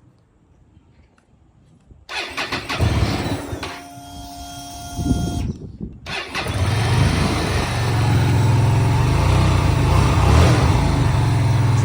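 2013 Hyosung GV250's V-twin engine starting: it fires about two seconds in with uneven surges, dips briefly, then settles into steady running that grows louder about eight seconds in and holds. Running well, with no sign of a fault.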